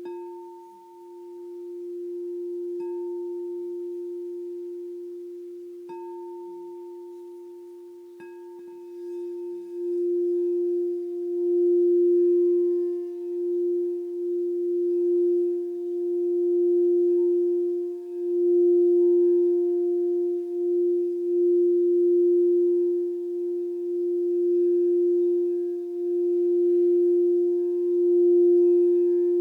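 Crystal singing bowl for the heart (Anahata) chakra sounding one pure, steady tone. It is tapped lightly about every three seconds at first, each time dying away. From about nine seconds in it is played around the rim, and the tone grows louder and swells and wavers without a break.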